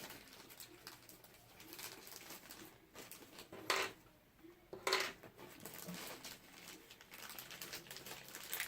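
Plastic toy stadium parts and packaging being handled during assembly: faint rustling and small clicks, with two short, louder clacks about four and five seconds in.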